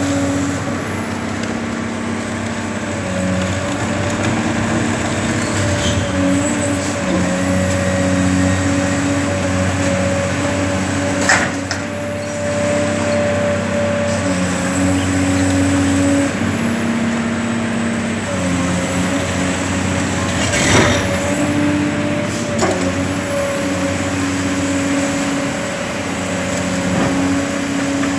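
Caterpillar demolition excavator's diesel engine running under load, its note rising and falling as the hydraulic crusher works, with a steady whine above it. A few sharp cracks of concrete breaking: one about eleven seconds in, and two more near twenty-one and twenty-three seconds, the one at twenty-one the loudest.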